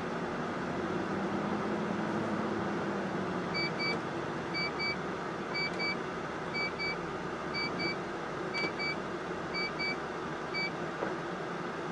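MAN TGS 40.480 truck driving on a test drive after a clutch replacement, heard from inside the cab as a steady engine and road drone. From about three and a half seconds in, a short electronic double beep repeats about once a second, seven or eight times.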